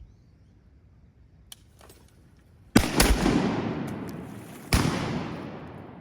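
Three shotgun blasts fired at ducks: two in quick succession about three seconds in, then a third about two seconds later. Each blast echoes and dies away slowly through the timber.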